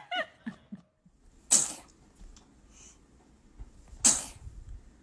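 A baby sneezing twice, two short sharp sneezes about two and a half seconds apart.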